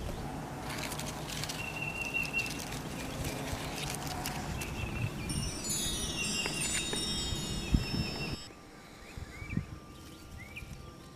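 Outdoor garden ambience with wind and handling noise, and a short sparkling chime sound effect falling in pitch about halfway through. After a sudden drop in level near the end, a small bird chirps about once a second, each chirp rising quickly.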